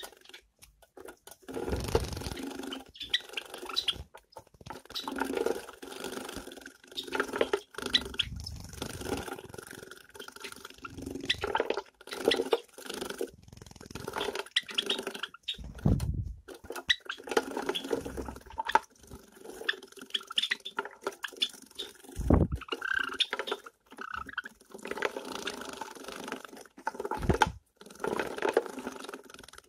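Java sparrows bathing in small plastic bird baths, splashing water in irregular bursts a second or two long, with short pauses between.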